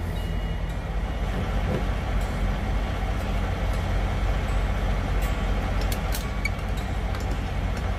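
Semi-truck diesel engine idling steadily, heard close up from between the cab and trailer, with a few light clicks about five to six seconds in.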